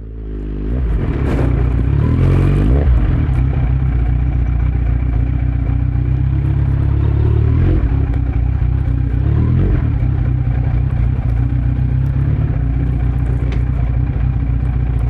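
2018 Kawasaki Z900's inline-four engine running through a Yoshimura muffler and Delkevic headers with no dB killer. The revs rise over the first few seconds, then the engine runs fairly steadily with a couple of brief rises and dips in pitch.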